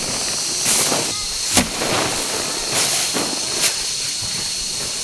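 Rice being harvested by hand: a swishing rush followed by a sharp crack about every two seconds, over a steady hiss with a thin high tone.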